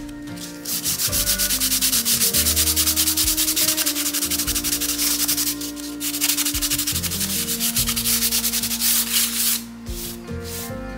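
Sandpaper rubbed rapidly back and forth over gesso-coated watercolor paper, sanding the gesso smooth; the rubbing breaks briefly midway and stops about a second before the end.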